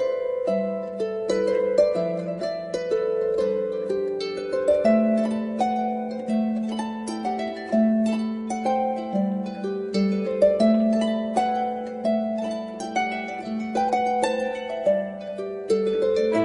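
Background music: a solo harp playing a brisk run of plucked notes.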